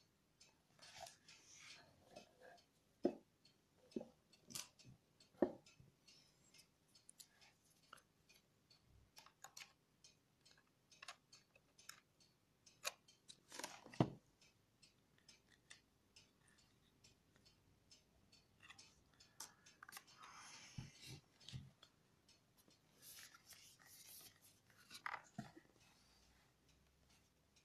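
Handling noise from a laptop held and turned in the hands: faint scattered clicks, taps and rubs, with a few sharper knocks.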